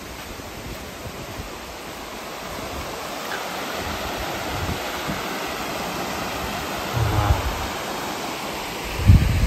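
Steady rush of a creek and waterfall, growing louder from about two seconds in. A few low thumps near the end.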